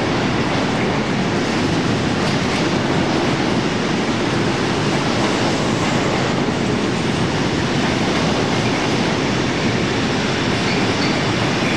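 Freight train wagons crawling past over the crossovers, a steady, unbroken rumble of wheels on rail.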